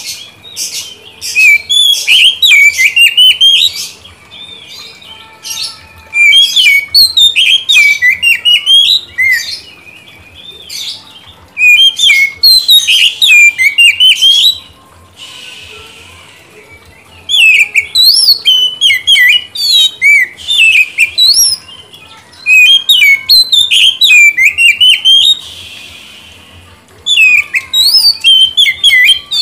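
Oriental magpie-robin singing loud bouts of rapid, varied whistled notes that sweep up and down. There are about six bouts, each two to four seconds long, with short pauses between them. This is the full, active song that keepers play to draw a reply from other magpie-robins.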